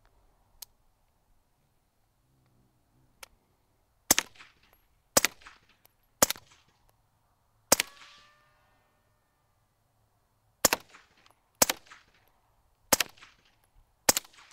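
Integrally suppressed 9mm semi-automatic carbine (Spikes Tactical Brown Recluse) fired slowly, eight suppressed shots about a second apart, with a pause of about three seconds after the fourth. The fourth shot is followed by a short ringing ping from a steel target plate.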